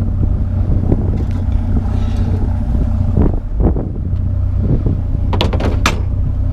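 Truck engine idling steadily, with a few sharp knocks and clatters from scrap being handled, the loudest a quick cluster near the end.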